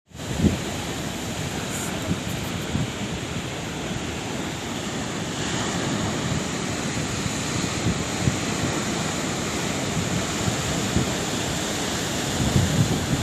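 Sea waves washing onto the shore in a steady rush of surf, with a louder surge near the end.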